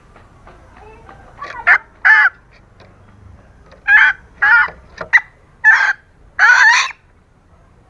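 Female green junglefowl calling: a run of about eight short calls with gaps between them, the last one longer. It is the hen's call that is used to lure cock birds.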